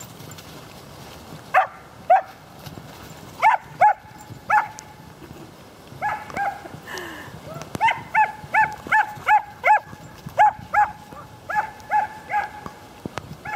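A dog barks in short, high-pitched barks while the two dogs chase each other in play. There are a few scattered barks at first, then from about eight seconds in a quick, steady run of them, two or three a second.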